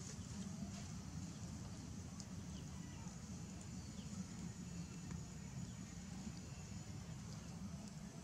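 Steady outdoor background: a low hum with a faint high hiss and a few faint ticks, with no distinct call or event.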